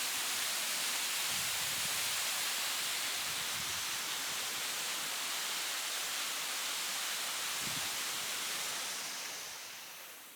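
Steady rushing hiss of outdoor noise, fading away near the end.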